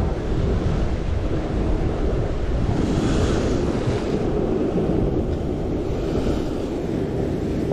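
Wind buffeting the microphone over sea waves washing on the shore, with two swells of surf hiss about three and six seconds in.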